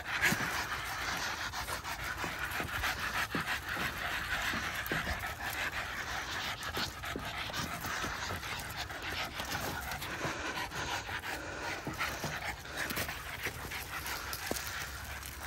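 Boston terriers panting steadily and quickly, out of breath from running and playing.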